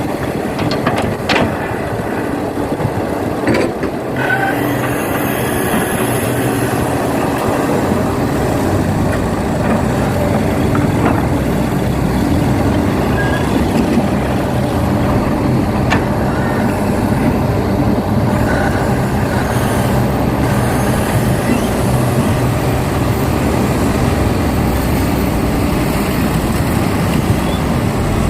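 Heavy diesel engine of earthmoving equipment running steadily, with a low rumble and a few faint clanks.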